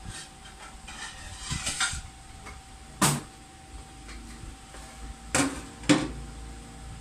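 Kitchen clatter of a plate being handled: light clinks, a sharp knock about three seconds in and two more sharp knocks near the end.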